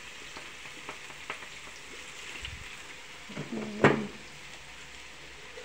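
Steady sizzle of diced carrot and vegetarian shiitake frying in oil in a wok, just seasoned with light soy sauce. A few light clicks, then a sharp knock a little under four seconds in.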